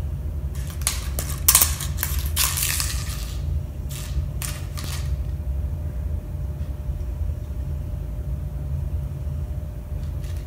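Crinkly rustling as a cat bats and mouths a blue feathery bird ornament, in several short bursts over the first five seconds and then mostly quiet, over a steady low hum.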